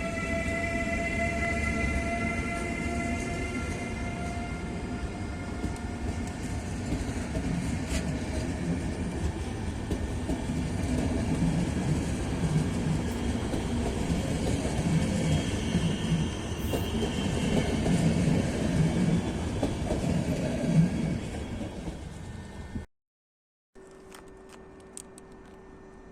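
Electric locomotive with a passenger train going by: a whine from the locomotive that rises slowly in pitch, then the coaches rolling past with a steady rhythmic clatter of wheels over rail joints. Near the end the sound cuts off abruptly to a much quieter steady hum.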